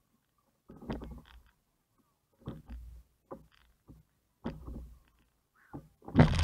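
A man breathing hard and grunting with exertion during pushups, one forceful exhale about every two seconds. The last one is the loudest.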